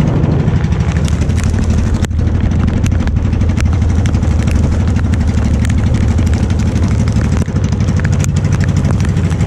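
Small fishing boat's engine running steadily under way, with heavy rain hissing on the water and drops ticking on the boat and camera.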